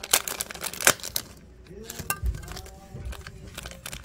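Thin clear plastic bag crinkling and crackling as it is pulled open, the sharp crackles thickest in the first second, then a few softer handling sounds with a couple of dull low bumps.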